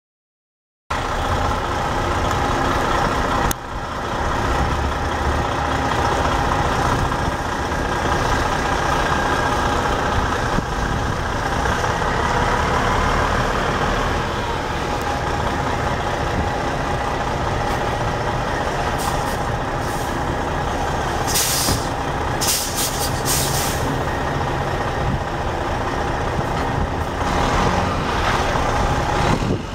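Detroit Diesel Series 60 12.7-litre inline-six diesel of a 2001 Freightliner Columbia semi tractor running as the truck drives slowly, starting about a second in. A few short bursts of air hiss from the air brakes come about two-thirds of the way through.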